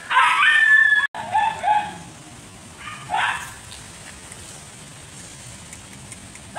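Puppy yipping and barking in short high-pitched calls: a cluster in the first two seconds, one more a little after three seconds in.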